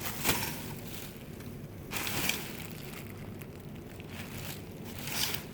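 Dresses on a clothing rack being handled and pushed along, the fabric rustling in three short bursts about two seconds apart.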